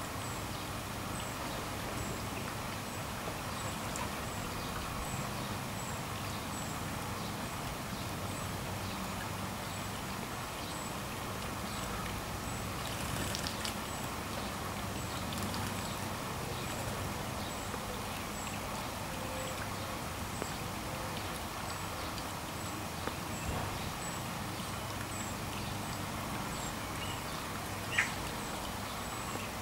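Garden fountain bubbling and splashing steadily over a rock. About 13 seconds in there is a burst of splashing as a male common blackbird flaps its wings in the water while bathing. Faint high ticks repeat steadily throughout, and a single sharp click comes near the end.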